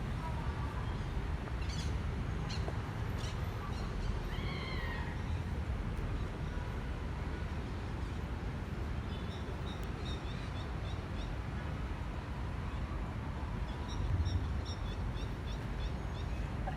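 Animal calls over a steady low background rumble. There are short chirps about two to three seconds in and one drawn-out pitched call about four seconds in. From about nine seconds a rapid, even series of high chirps runs on.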